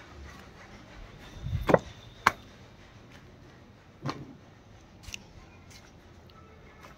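A few separate sharp knocks and clicks over a quiet background, the loudest a thud and knock just under two seconds in, followed by two more at about two and four seconds.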